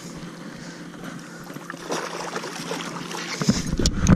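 Water splashing and lapping against the side of a bass boat as a hooked bass is fought to the boat, over a steady low hum. Near the end, rumbling handling noise and a few sharp knocks come in as the angler leans over the gunwale to grab the fish.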